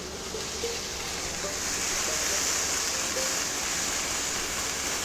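Sliced onion and bell peppers sizzling in oil in a hot stainless steel skillet as they are stirred with a wooden spatula: a steady hiss that grows a little louder over the first couple of seconds.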